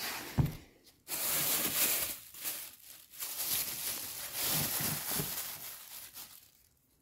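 Thin plastic bag rustling and crinkling as it is handled, in several spells, stopping about a second before the end.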